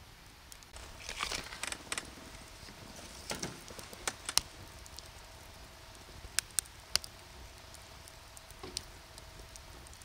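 Firewood burning in a fire pit, crackling irregularly with a handful of sharp pops, the loudest about four seconds in.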